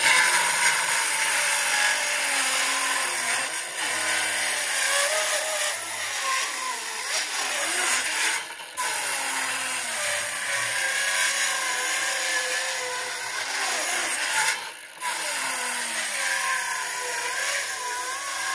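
Milwaukee M12 Fuel brushless 5-3/8-inch cordless circular saw ripping a pine 2x8 lengthwise. The motor's pitch wavers as it works under load, and the sound dips briefly a few times as the cut pauses. It is a slow, hard rip for this small saw.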